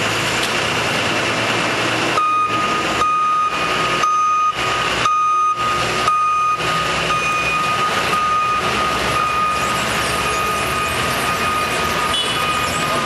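Forklift's reversing alarm beeping again and again from about two seconds in, over the steady running of the forklift's engine and hydraulics as it works a pulp bale clamp.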